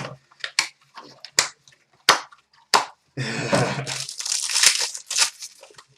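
Plastic wrapping on a sealed trading-card box being torn open and crinkled. A few sharp crackles come in the first three seconds, then a longer stretch of crinkling and tearing about four seconds in.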